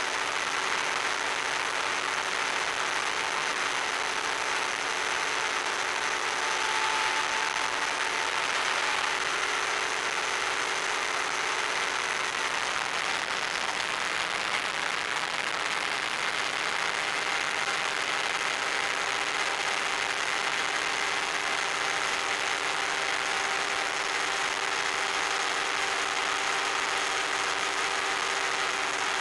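Electric motor and propeller of an FPV model plane at steady cruise power, heard through the onboard microphone as a constant hum under a strong rush of wind and hiss.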